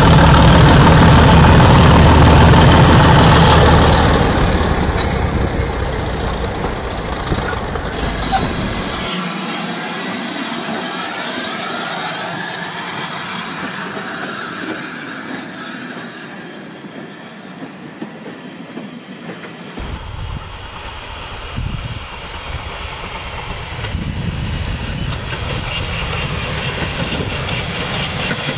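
Model trains running on layout track, with a steady clatter of wheels over the rails mixed with motor noise. It is loudest for the first four seconds, then quieter, and its character shifts between shots.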